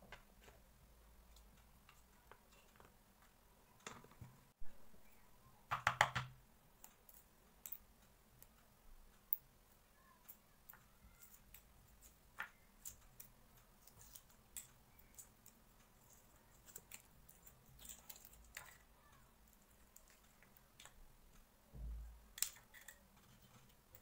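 Hard-boiled egg being cracked and peeled by hand: scattered small crackles and clicks of eggshell, with a few louder knocks, the loudest a short clatter about six seconds in.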